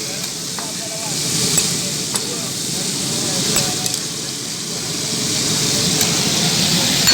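Liver frying in masala on a flat tawa griddle, sizzling in slow swells, with a few sharp clicks of a metal spatula against the pan.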